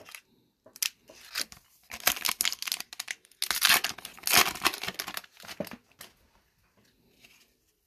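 Foil wrapper of an Upper Deck Extended Series hockey card pack being torn open and crinkled by hand: a string of rustling tears and crinkles, loudest in the middle, stopping about six seconds in.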